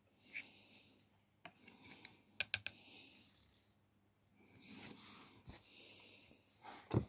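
Small handling noises while working on a bassoon reed at a table: a few light clicks, a quick cluster of three about two and a half seconds in, a short rustle, and one dull thump near the end.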